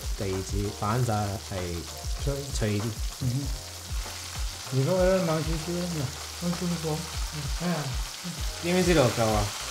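Chicken drumettes deep-frying in oil in a stainless-steel pot during the first, lower-temperature fry (around 300°F): a steady sizzle and bubbling as chopsticks turn the pieces. A man speaking in Cantonese is louder over it.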